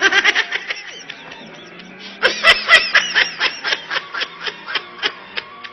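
A person laughing: a quick burst of rapid ha-ha pulses, then, after a short lull, a longer fit of laughter starting about two seconds in that slows and trails off near the end.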